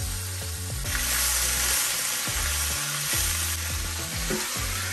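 Trout and onions sizzling in butter in a hot skillet; the sizzle swells about a second in and eases again near the end.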